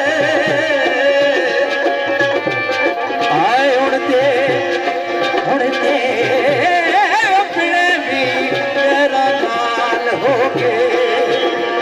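Live Pakistani folk music: a keyed banjo and harmonium play a wavering melody over a steady hand-drum beat.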